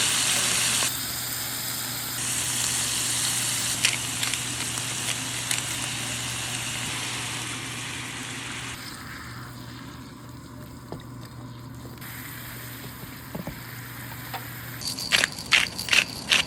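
Steak searing in a hot pan, a steady sizzle that grows fainter about halfway through. A few sharp clicks and knocks come near the end.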